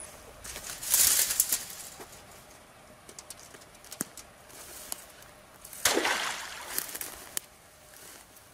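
A crawfish trap on a cord tossed into a creek: splashing and rustling through the bankside grass in two noisy bursts, about a second in and again some five seconds later.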